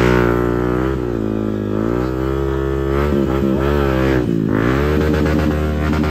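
Off-road dirt bike engine being ridden, its revs rising and falling several times as the throttle is opened and closed.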